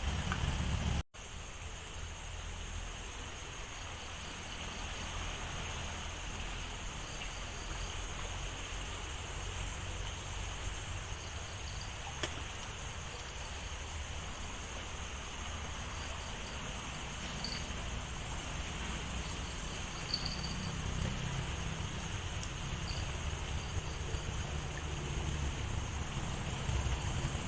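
Steady riverside ambience: a small river flowing, with a continuous high buzz of insects over it. A short dropout cuts the sound about a second in.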